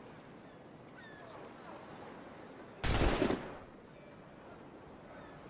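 A single musket shot: one sudden bang a little under three seconds in that dies away over about half a second.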